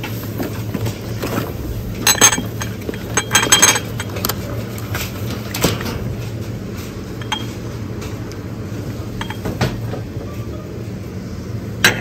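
Dishes and glassware clinking as they are handled and set down, in a few short clusters, the loudest about two and three and a half seconds in, over a steady low hum.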